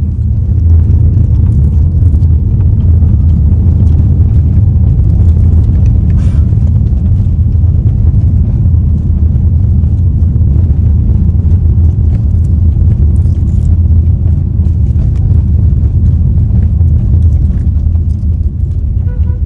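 Loud, steady low rumble of a road vehicle in motion.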